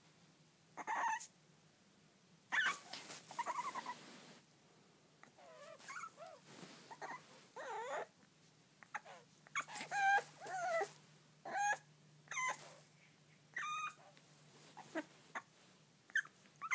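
Dog whining and whimpering in a string of separate cries that glide up and down in pitch: separation whining for an absent person.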